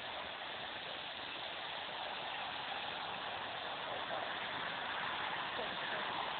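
Distant rushing jet noise from an approaching Airbus A380-861's four Engine Alliance GP7200 turbofans on landing approach, a steady hiss that grows slightly louder over the last couple of seconds.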